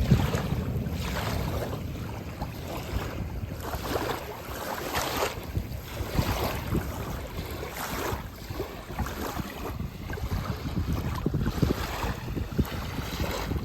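Water washing in irregular surges every second or two, with wind rumbling on the microphone.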